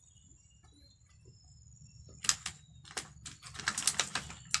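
Close-up eating sounds: chewing and lip-smacking on grilled fish, a run of sharp irregular clicks that starts about halfway through and gets busier.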